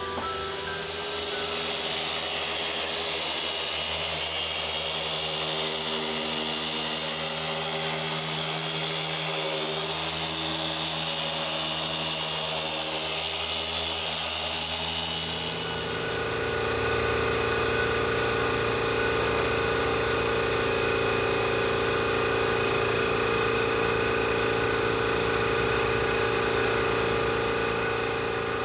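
Electric machine polisher running steadily on car paint, getting louder about halfway through.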